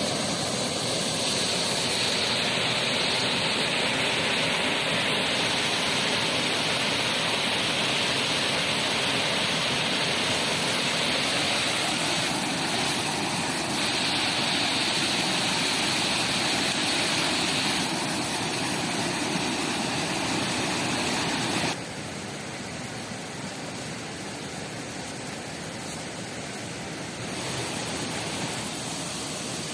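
Steady rushing of water from a river and waterfall, a dense hiss. It changes abruptly in level several times and drops noticeably quieter about two-thirds of the way through.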